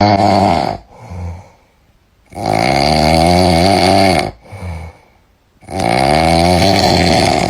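Loud snoring in a regular rhythm: long, pitched, rattling snores of about two seconds each, each followed by a short, softer breath, repeating about every three seconds.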